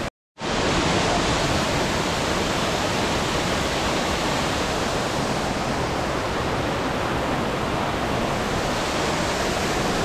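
Steady, loud rush of falling water close by, an even hiss across all pitches that cuts in abruptly after a split second of silence at the very start.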